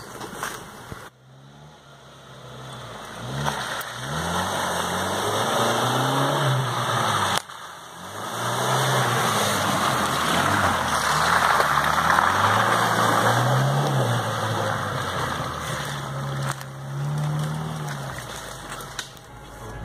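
Suzuki Vitara's engine revving up and down again and again as it drives through mud on a dirt track, heard from outside the vehicle. A louder rushing noise of tyres and mud comes in the middle as it passes close, and the sound breaks off abruptly twice at cuts.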